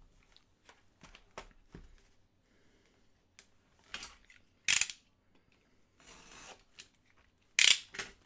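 Trading cards and pack wrappers being handled: small clicks and scratchy rustles, with two short, louder tearing sounds, one about halfway through and one near the end, as packs are ripped open.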